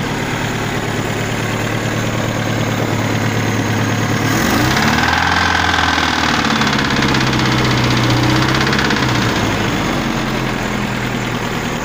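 GAZ Volga's ZMZ-402 inline-four petrol engine idling, then revved up about four seconds in, held for some five seconds and let back down to idle. Above about 1500 rpm it knocks in the engine, a knock traced to a connecting rod whose big-end nut had worked loose.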